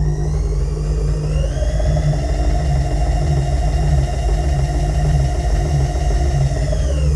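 Electric motor driving a milling machine's table: a whine that rises as it starts, runs steady, and falls away near the end as it stops. A steady low hum runs underneath.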